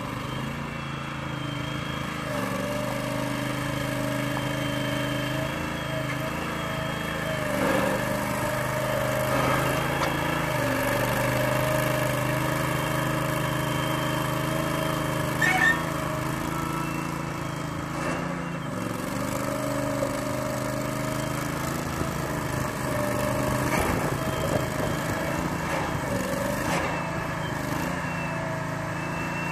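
Engine of a self-propelled Aust-Mech ADOG drive-over grain hopper running steadily as the machine drives and turns, its pitch shifting slightly. A brief knock about halfway through.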